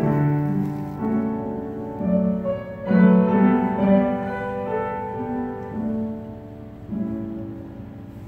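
Slow instrumental music led by piano, its notes changing about every half second to a second.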